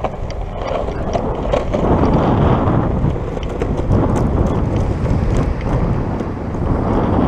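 Wind buffeting the microphone in gusts, over the rumble of longboard wheels rolling on a concrete promenade.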